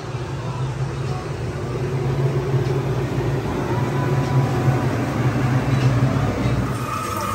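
Walk-in cooler's refrigeration unit running: a steady low hum with the whir of fans, which drops away near the end.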